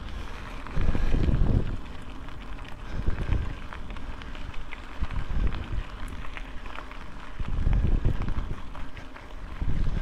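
Wind buffeting the microphone of an action camera on a moving motorcycle, coming and going in irregular low rumbles over a steady rush of road noise; the loudest rumbles come about a second in and again near the end.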